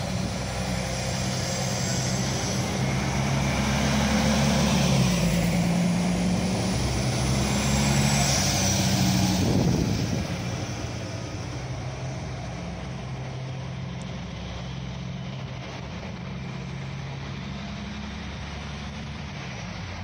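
Alstom Coradia LINT 41 (class 648) diesel multiple unit pulling away and accelerating, its diesel engines running under load with the engine note changing in steps. Loudest as it passes, about halfway through, then fading as it draws away.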